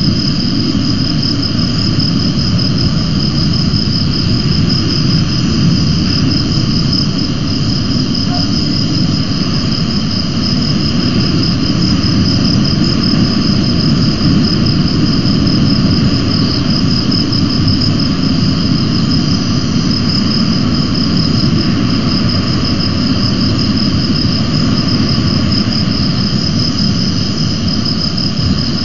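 A steady, high-pitched, pulsing, cricket-like trill over a continuous low rushing noise.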